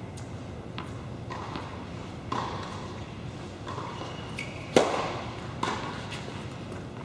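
Tennis racket striking the ball on a serve just under five seconds in, a sharp pop that is the loudest sound, followed about a second later by a second, softer ball impact. Several lighter ball taps come before it.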